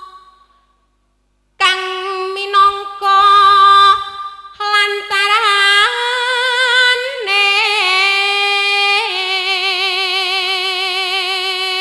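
A woman singing solo into a microphone: long held notes with a wide, wavering vibrato and ornamented turns. The singing pauses briefly and comes in again about a second and a half in.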